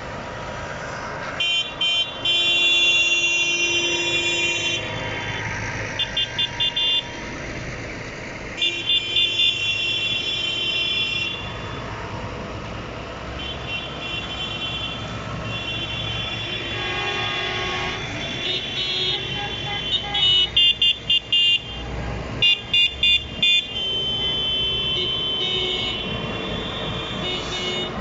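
A convoy of farm tractors rolling past with engines running and horns honking again and again: some long held blasts and several quick runs of short toots.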